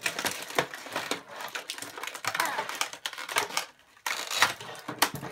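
Clear plastic toy packaging in a cardboard box crinkling and crackling as it is handled, with a short lull about four seconds in.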